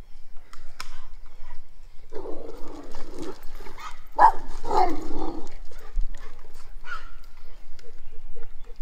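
Boston Terriers vocalizing as they play, with two longer rough outbursts, one about two seconds in and one about four seconds in, and a few short clicks and small sounds around them.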